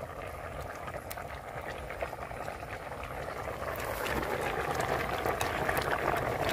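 Fish curry simmering and bubbling in an aluminium pot over a wood fire, with steady rain falling around it. The noise grows louder in the second half.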